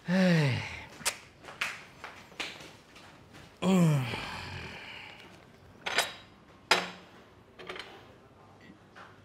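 A low groan-like voice sound falling in pitch, heard twice about three and a half seconds apart, followed by a few sharp clicks.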